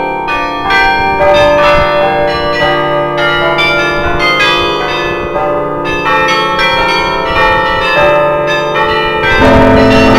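The bronze bells of the Bruges Belfry carillon playing a tune automatically, heard close up among the bells: many bells struck in quick succession, their tones ringing on over one another. A deeper, louder bell rings out near the end.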